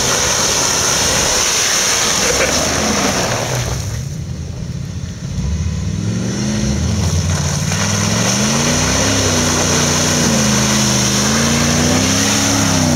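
An off-road 4x4's engine revving hard, its pitch rising and falling several times in the second half as the throttle is worked on an obstacle, with a rougher noisy stretch at first.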